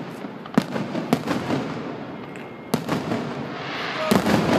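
Aerial fireworks shells bursting: three sharp bangs over the first three seconds, then a quick cluster of bangs near the end.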